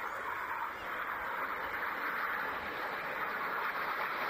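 Steady rushing jet noise from a formation of BAE Hawk jet trainers flying past at a distance, growing a little louder about a second in.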